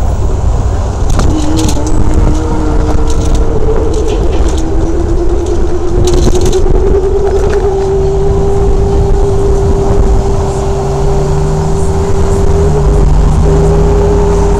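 Traffic on a busy city street heard from a moving bicycle, under a heavy low rumble. A motor whine rises in pitch over several seconds and then holds steady, and there are a few short rattles in the first seconds.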